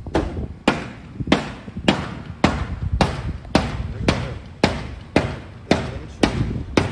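A parked car's body being struck over and over with a hand-held object: a steady run of sharp bangs, each ringing briefly, about two a second.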